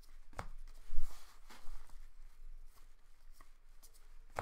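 Trading cards being handled on a table: cards sliding against each other, with several light taps and clicks and one louder thump about a second in.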